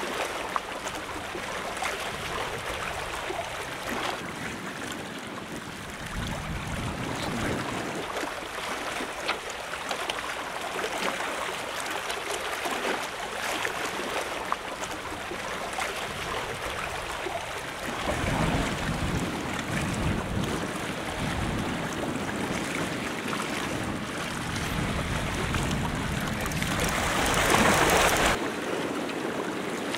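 Sea waves washing against a seawall, with gusts of wind buffeting the microphone and one louder surge of water near the end.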